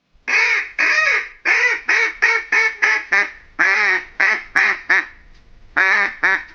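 A duck quacking: about fifteen loud quacks in three quick runs, with short pauses between the runs.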